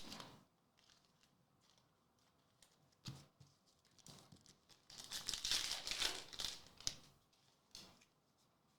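A foil booster-pack wrapper being torn open and crinkled, mostly in a stretch of about two seconds past the middle, after a click at the start and a light tap.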